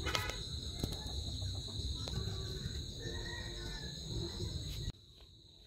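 Steady, high-pitched insect trilling, a continuous chorus of crickets, over a low background rumble that drops away abruptly about five seconds in.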